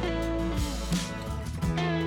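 Outro background music: strummed and bent guitar notes over a steady bass.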